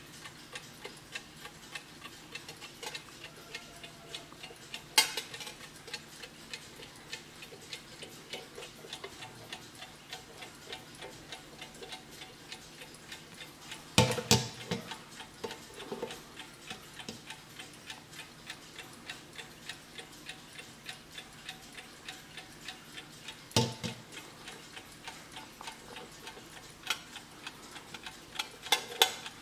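Vintage German PETER twin-bell mechanical alarm clock ticking steadily and evenly. A few sharper knocks break in as the clock is handled, the loudest about 5 and 14 seconds in.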